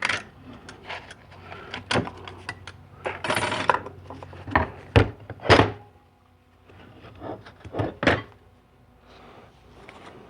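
Clutch plates from a 4L80E transmission's clutch pack clinking and knocking as they are handled and set down one by one, a series of separate metallic clicks with a short rustle a little after three seconds.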